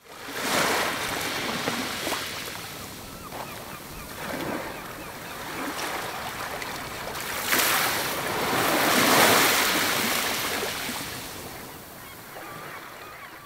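Small sea waves washing onto a sandy beach, a steady wash that swells in surges, rising sharply about seven and a half seconds in and then slowly fading.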